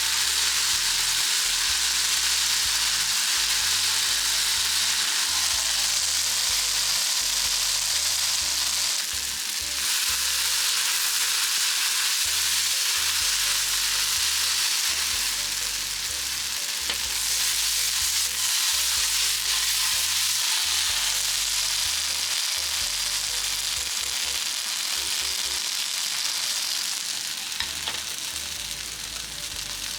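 Potatoes and celery sizzling in hot oil in a frying pan as they are stir-fried: a steady, dense sizzle with brief dips, easing off near the end.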